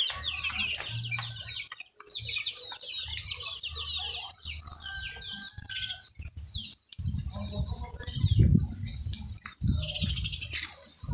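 A crowd of young chicks peeping, many short, high, falling cheeps overlapping, densest in the first few seconds and thinning out after. From about seven seconds in, a low rumbling joins them.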